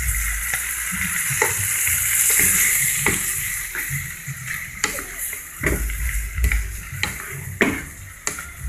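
Chopped vegetables sizzling in oyster sauce and broth in a non-stick frying pan, stirred with a spatula that scrapes and knocks against the pan every second or so, more often near the end.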